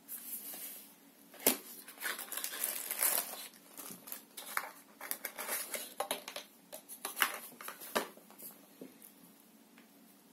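A small cardboard box being opened and a speaker wrapped in plastic taken out: irregular rustling and crinkling of cardboard and plastic, with sharp clicks and taps, the sharpest about a second and a half in and near eight seconds.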